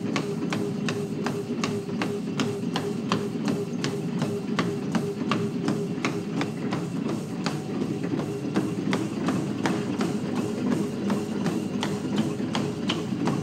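Running footfalls landing on a motorised treadmill belt, about three a second and very even, over the treadmill's steady motor hum.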